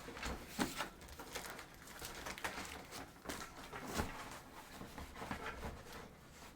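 Cardboard box rustling and scraping in irregular bursts, with a few knocks, as a keyboard stand is worked out of it. The stand catches on the torn cardboard and won't slide out.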